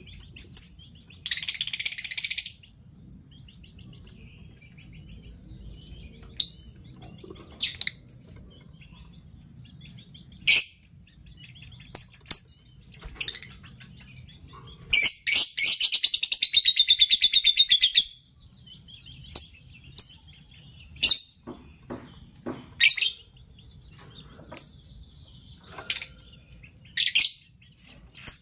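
Lovebirds calling: sharp, high chirps every second or two, with a harsh rapid chattering burst about a second in and a longer one lasting about three seconds near the middle.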